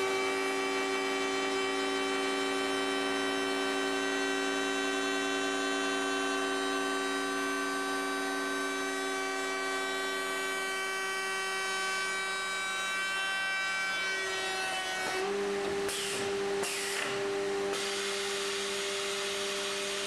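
A CNC stair router's 5-horsepower high-speed router motor runs with a steady whine while its bit cuts an open wooden stair stringer. About 15 seconds in the pitch shifts and rougher bursts of cutting noise come in.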